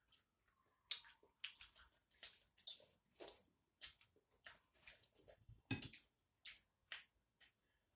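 Close-miked eating sounds: a string of short, irregular wet clicks and smacks from chewing and from fingers mixing rice and curry on a steel plate, with one louder thump about three-quarters of the way through.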